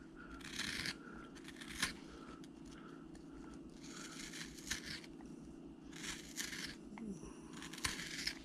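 Small carving gouge cutting across the grain of a piece of wood: faint, crisp scraping cuts in short bursts, with a few sharp clicks.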